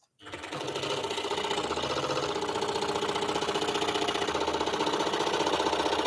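Axminster Trade Series EX-16 scroll saw switched on just after the start and running steadily, its blade stroking up and down in a fast, even rhythm.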